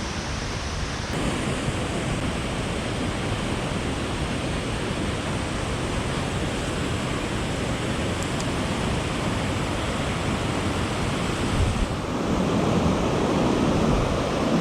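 Steady rush of river water tumbling below a dam's falls. Near the end, low wind buffeting on the microphone joins it.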